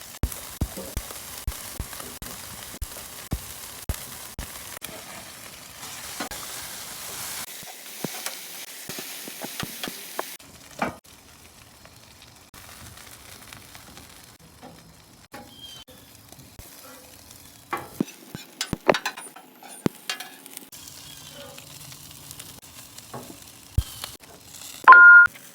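Food sizzling on a hot griddle pan, with frequent small clicks and taps of a utensil; the sizzle drops off about ten seconds in, leaving scattered taps. A brief loud two-note tone sounds just before the end.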